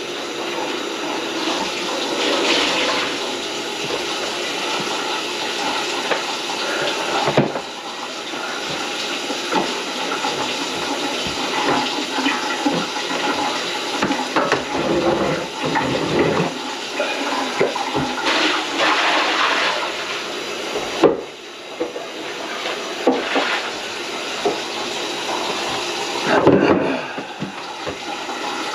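Water running and splashing in a kitchen sink, with knocks and clatter throughout.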